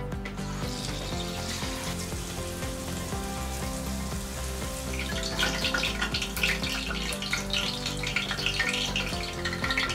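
Tempura-battered prawns deep-frying in hot oil, a steady sizzle that turns louder and thick with crackling from about halfway through.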